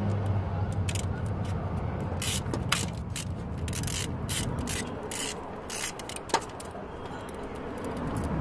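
Ratchet and socket on an extension working the nuts on the exhaust-manifold studs of a car engine: a string of short metallic ratcheting clicks and scrapes at uneven intervals, busiest in the middle.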